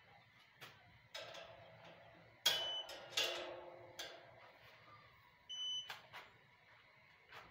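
Satellite finder meter giving short high beeps, one about two and a half seconds in and a longer one about five and a half seconds in, as the dish is swept across the sky in search of a satellite's signal. Knocks and scrapes from the dish and its pole mount being moved by hand come through between them, the loudest near the first beep.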